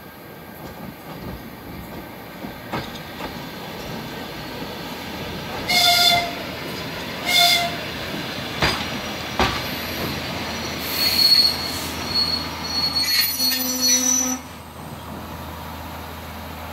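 ER2 electric train arriving, getting louder as it comes in. Its horn gives two blasts, a longer one about six seconds in and a shorter one a second and a half later. Then wheels clack over rail joints and squeal as the train slows for the station, with the squealing stopping abruptly about 14 seconds in.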